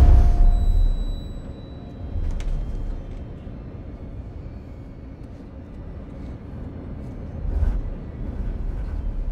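Steady low rumble of an airliner cabin in flight, loud at the start and easing off within the first second, then swelling briefly about two seconds in and again near the end.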